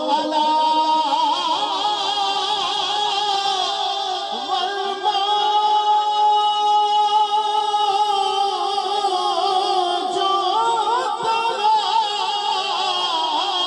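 Man singing an Urdu naat solo through a microphone and PA, unaccompanied. He holds long, wavering notes with ornamented runs between them.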